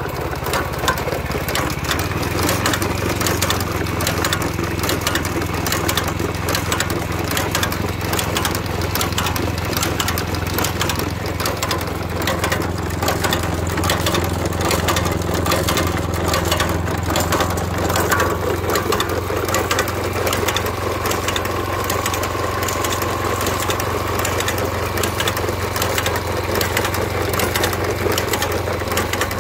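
Mitsubishi GM132 4 hp OHV petrol engine of a walk-behind mini reaper running steadily, with a fast mechanical clatter over the engine note.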